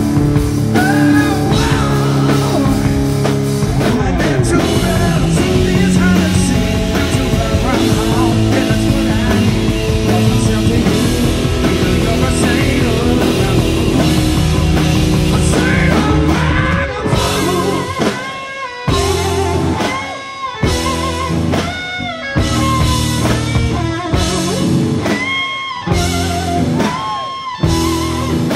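Live rock band playing loudly, with electric guitar leads of sustained, bending notes over bass and drums. About 17 seconds in, the band switches to short stop-start hits with brief gaps between them.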